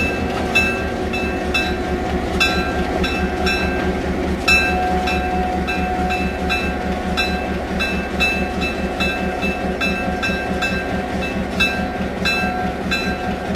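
EMD FP7 diesel locomotive's 16-cylinder 567 engine idling with a steady pulsing rumble, with sharp ticks repeating about twice a second over it.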